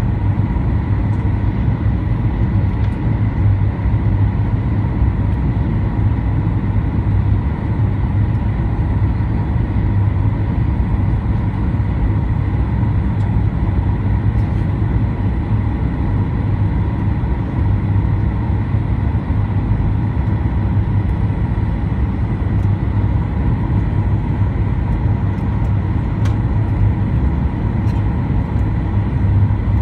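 Cabin noise of a Boeing 737-800 on final approach: a steady roar of its CFM56 turbofan engines and the airflow over the fuselage, with a faint steady whine above it.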